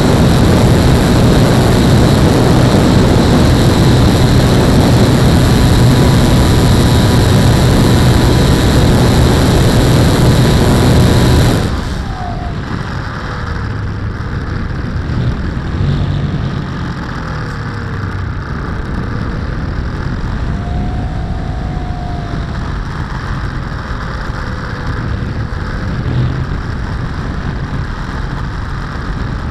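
Onboard sound of a radio-controlled SR22 trainer model plane in flight: its motor and propeller run steadily at high throttle with wind rushing past. About twelve seconds in the motor cuts back abruptly, leaving quieter wind rush as the plane glides on.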